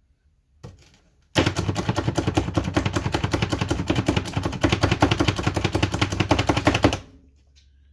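Hand-operated vegetable chopper worked rapidly on vegetables: a fast, even run of chopping clacks, about eight a second, that starts about a second and a half in and stops abruptly about five and a half seconds later.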